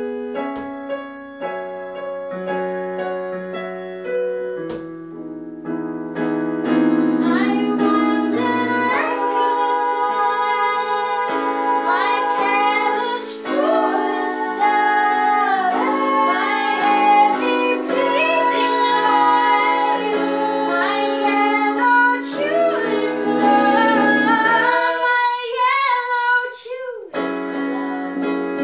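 Live acoustic set of female voices singing to an electric keyboard. The keyboard chords lead for the first few seconds before the voices come in more strongly, and near the end the keyboard briefly stops while a voice slides through high notes, then the keyboard comes back in.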